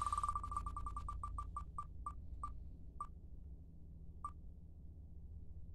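Online spinning-wheel picker's tick sound effect played through laptop speakers: rapid ticks that slow down steadily as the wheel coasts to a stop, the gaps widening until a last tick about four seconds in.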